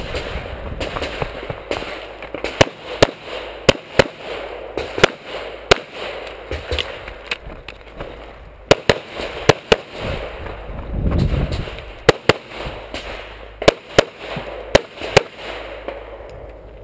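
Pistol shots fired in quick succession, often in close pairs (double taps on each target), in groups broken by short pauses.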